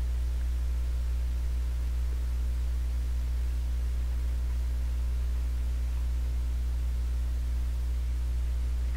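Steady low mains hum with a faint hiss, unchanging throughout.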